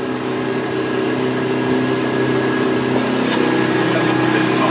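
Hardy Navigator motor boat's engine running steadily underway, a level drone with a steady hiss over it, heard from inside the boat's cabin.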